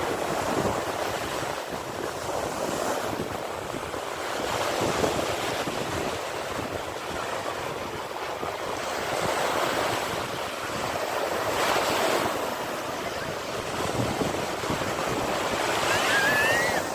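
Sea waves breaking and washing on a shore, the surf swelling and easing every few seconds, with its loudest swell near the end.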